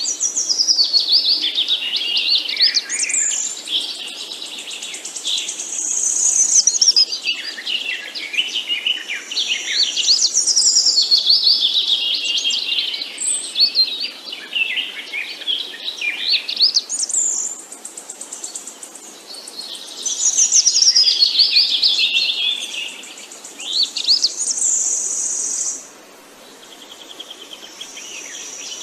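Songbirds chirping and singing: a dense run of quick, high, overlapping chirps and trills that eases off briefly twice.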